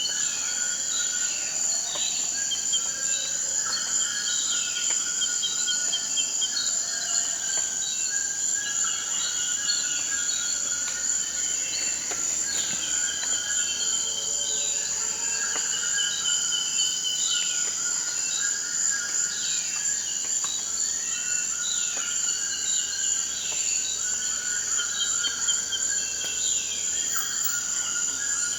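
Tropical forest ambience: a steady high-pitched insect drone, with repeated chirping and trilling calls from other animals layered over it.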